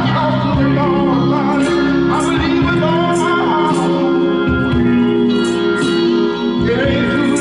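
Gospel music with singing, accompanied by organ and a steady beat.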